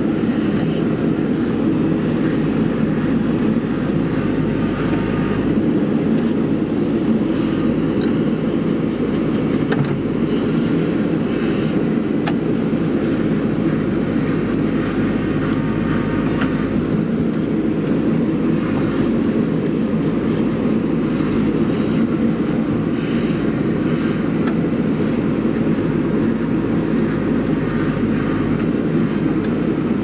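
JCB 3DX backhoe loader's diesel engine running steadily under load as the backhoe arm digs soil, a constant drone.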